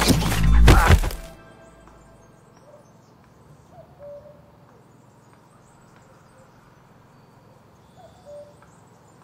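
Heavy running footsteps crashing through grass and undergrowth, loudest about a second in, then stopping abruptly. After that there is quiet woodland with faint, scattered bird chirps.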